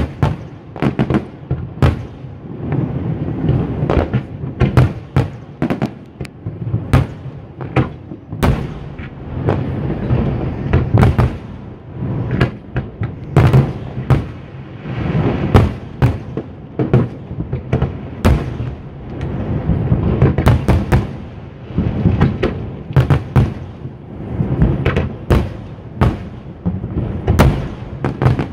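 Aerial fireworks shells bursting in a dense, continuous barrage of sharp bangs over a steady low rumble.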